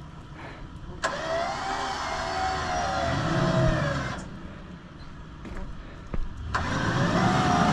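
Electric recovery winch pulling a heavy load in two bursts of about three seconds each, switched on and off abruptly. Its motor whine wavers as it strains against the weight.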